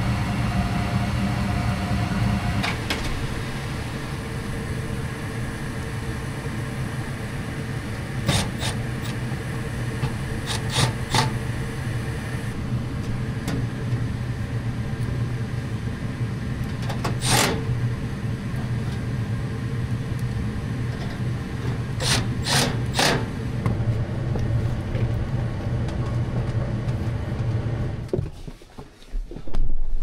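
Gas furnace running with a steady motor hum, broken by a few sharp clicks; the hum stops abruptly near the end.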